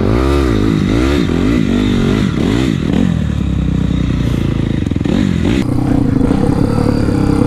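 Four-stroke single-cylinder off-road motorcycle engine being ridden on a trail, revving up and down in quick surges for the first few seconds, then holding a steadier, higher pitch from about halfway on.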